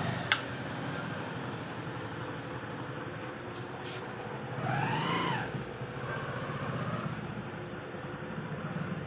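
Fan coil winding machine running with a steady hum, with a sharp click just after the start and a short tone that rises and falls about five seconds in.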